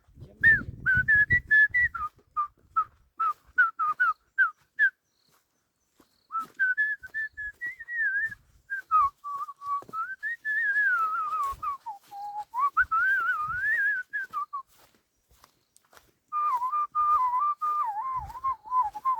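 A person whistling a tune: a run of short notes, then longer warbling phrases that rise and fall, broken by pauses of a second or two.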